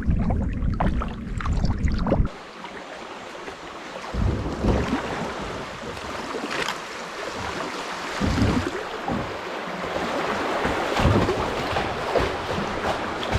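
Canoe paddling: water swishing and splashing with the paddle strokes. A low wind rumble on the microphone at the start cuts off suddenly about two seconds in.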